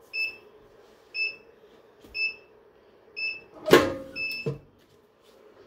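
Swing-away heat press timer beeping five times, about once a second, signalling that the press time is up. Partway through the beeping comes a loud clunk as the press is released and opened.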